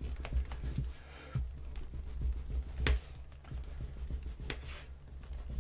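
Bone folder rubbing and pressing along the contact-cemented edge of veg-tanned leather on a cutting mat, a soft scraping that seals the glue bond. Two sharp clicks stand out, one near the middle and one later, over a low steady hum.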